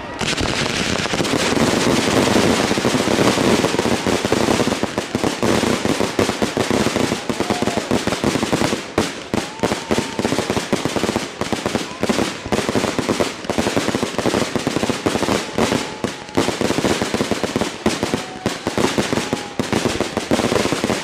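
Aerial fireworks display: shells bursting in a dense, continuous barrage of overlapping bangs and crackling.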